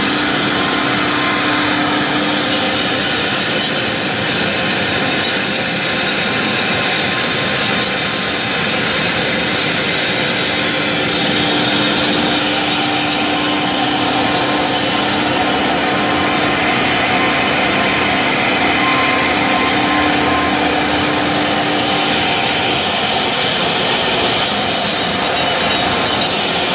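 Double-head CNC router spindles cutting a relief pattern into a board: a steady hiss of cutting with a few steady spindle tones held through.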